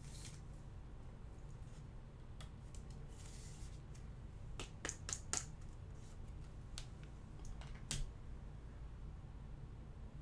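Faint clicks and a brief rustle of trading cards and packs being handled, with a quick run of four clicks about halfway through, over a steady low hum.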